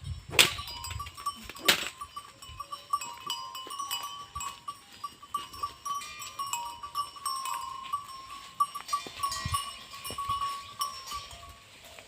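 A bell on a grazing goat clinking unevenly as the goat moves, with two sharp clicks in the first two seconds.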